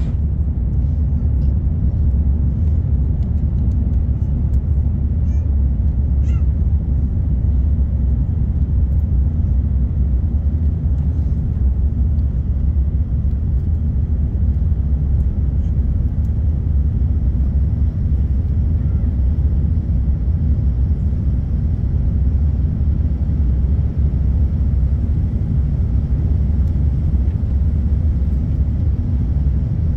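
Steady low rumble of an Airbus A350's jet engines and airflow heard from inside the cabin during the climb after takeoff.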